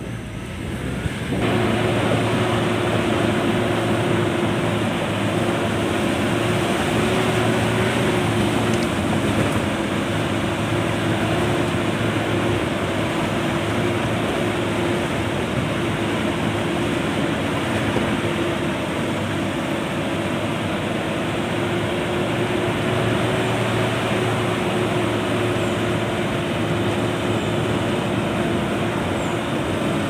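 A vehicle's engine running steadily along a rough dirt road, with a constant hum over tyre and road noise. The sound swells up about a second and a half in.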